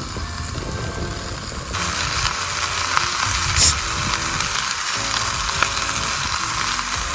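Spare ribs sizzling in a pan over a campfire, the sizzle growing louder a couple of seconds in, with a few sharp pops.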